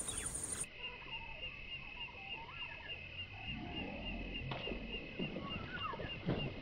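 Insects chirping in a steady pulsing rhythm, with birds calling. From about four seconds in, water splashes as a snakehead strikes a surface lure being pulled through the weeds.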